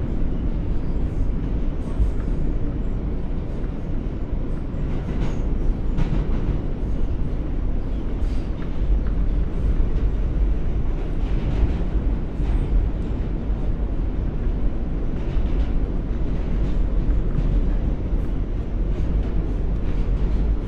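New York City subway car on the Q line running along the track, heard from inside the car: a steady, heavy low rumble, with faint clicks and rattles now and then.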